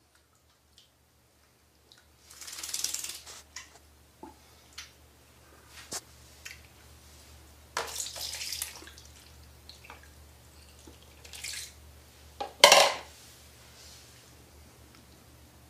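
Water sloshing and splashing in a basin holding a bathing kitten, in a few short bursts with small knocks in between; the loudest splash comes near the end.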